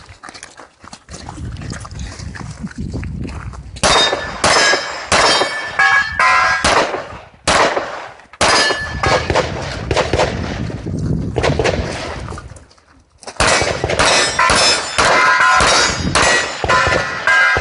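Gunshots fired in quick strings, many followed by the ring of steel targets being hit. The first string comes about four seconds in, and after a lull of several seconds a second string begins near the end.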